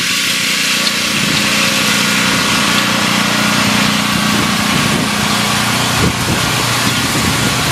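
A small engine running steadily at a constant speed, with an even, unchanging hum.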